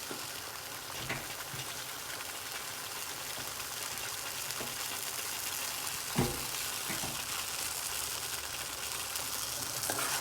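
Spice mixture of coriander, chili and turmeric powders sizzling steadily in hot coconut oil, with one soft knock about six seconds in.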